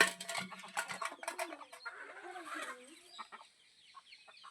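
Chickens clucking, with a flurry of sharp clicks and taps in the first second or so, then wavering low clucks and short high chirps that fall in pitch towards the end.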